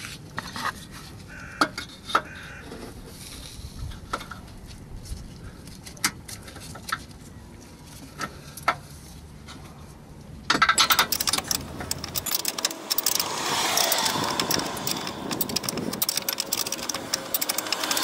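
Hand spanner work on the 16 mm gearbox-mounting bolts: scattered sharp metallic clicks and knocks, then from about ten seconds in a much louder, fast, steady run of clicking as the bolt is turned.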